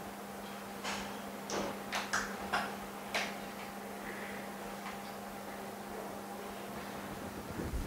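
Small hand tools clicking and scraping against an iPhone LCD screen held in a plastic glue-removal mold, a few short sharp clicks in the first three seconds, over a steady electrical hum.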